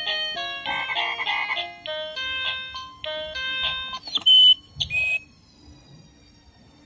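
KANZ Ferris wheel baby toy playing a simple, tinny electronic melody. About four seconds in, a press on one of its animal buttons breaks off the tune and sets off two short, loud, high electronic tones.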